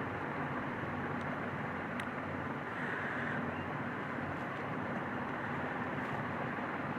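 Steady low hum and hiss of background noise, with a couple of faint clicks.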